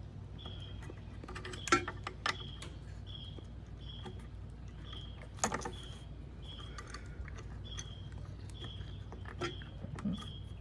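A few sharp metallic clinks of a wrench and steel bolts and nuts being handled while the trike steering kit is fitted, the loudest about two seconds in and again past the middle. Under them a short, high chirp repeats steadily about every two-thirds of a second, over a low steady hum.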